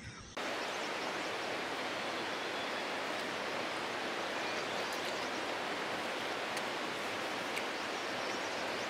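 Steady rushing of water, an even hiss without a break that starts abruptly a moment in.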